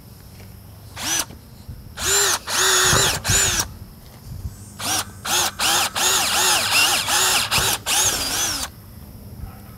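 Triton cordless drill with a cobalt bit drilling steel, run in short trigger bursts: a few half-second spells, a pause, then a string of quick pulses. The motor whine rises and falls in pitch with each burst.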